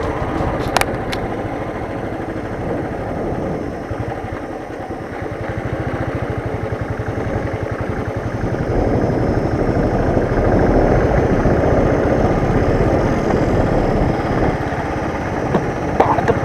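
Royal Enfield Thunderbird's single-cylinder engine running with a steady exhaust beat, growing louder about halfway through.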